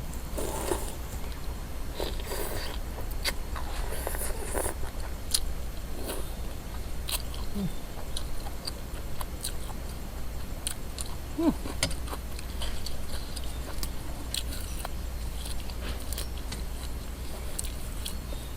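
Close chewing of crispy fried pork rinds (khaep mu), with sharp, irregular crunches and crackles throughout.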